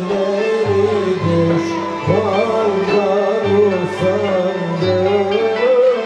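Turkish Sufi music: an end-blown ney flute playing a wavering melody over a steady frame-drum beat.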